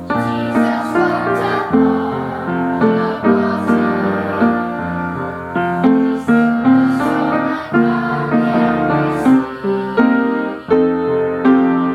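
Piano music: chords and a melody played at an easy pace, each note struck and left to ring.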